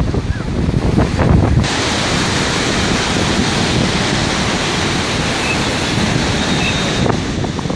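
Rough, storm-driven sea surf breaking, with gusty wind buffeting the microphone. About one and a half seconds in, the sound changes abruptly to an even rushing hiss of waves and wind.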